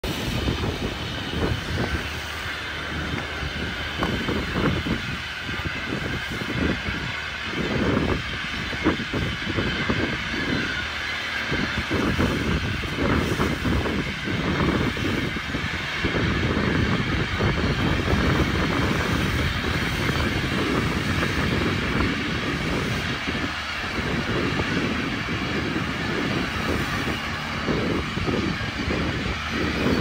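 Steady low rumble of a fishing trawler's engine with wind gusting on the microphone.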